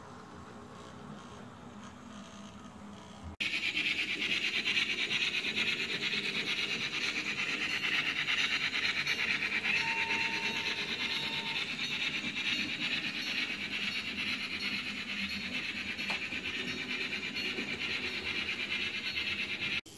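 H0-scale model train running on the layout's track. A quiet hum gives way abruptly, a few seconds in, to a louder steady fine rattle of the model's wheels and motor on the rails. A brief faint steady tone sounds about halfway through.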